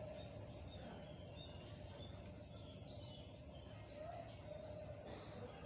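Brown-chested jungle flycatcher calling faintly: a scattered run of short, high chirps and quick falling whistles over a steady low hum.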